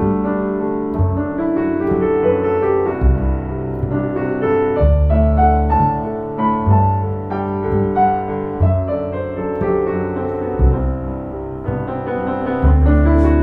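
Background piano music: a slow, gentle melody over held bass notes.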